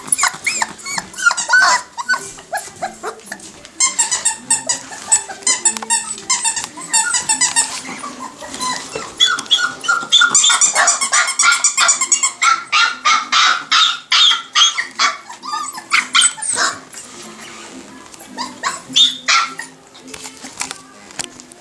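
One-month-old Nova Scotia Duck Tolling Retriever puppies yipping and barking in rapid high-pitched bursts as they play, over background music.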